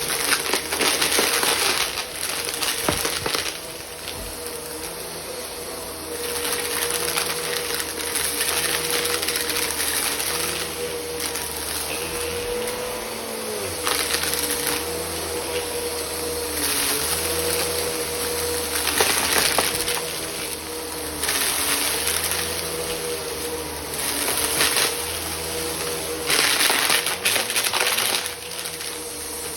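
Bissell vacuum cleaner running with a steady motor whine, broken by loud crunching stretches of a second or few that come and go as it works; the motor's pitch sags briefly a few times under load.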